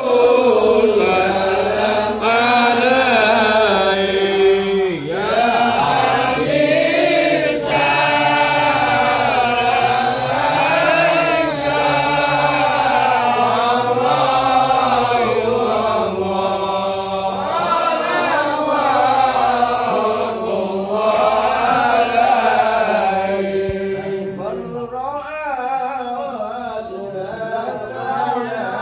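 A group of men chanting an Islamic devotional chant together, melodic and continuous, led over a microphone. It grows somewhat softer near the end.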